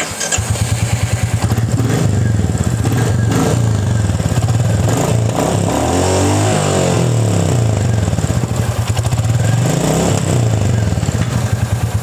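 Royal Enfield Classic 350's single-cylinder engine starting on the button and settling into a steady thumping idle. The throttle is blipped about halfway through and again near the end, the pitch rising and falling back each time.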